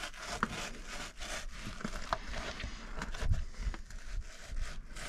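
Fillet knife sawing back and forth between the skin and flesh of a Spanish mackerel fillet, in repeated short scraping strokes against the cutting board, with a few light knocks.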